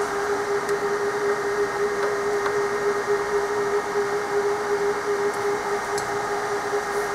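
Cooling fans of a powered-up Bay Networks 28115/ADV Ethernet switch running at full speed: a steady hum over an even rush of air.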